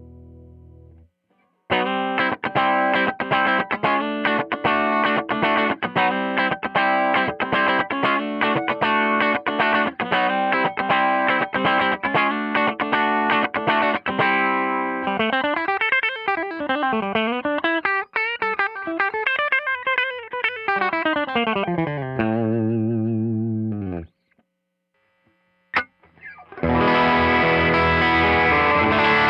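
2003 Wayne Custom electric guitar through a Tone King Imperial Mk II amp on a clean, slightly hot tone with some distortion: a fast run of picked notes, then notes sliding up and down in pitch, and a held note dying away. After a brief pause with a single click, louder, brighter playing comes back in near the end.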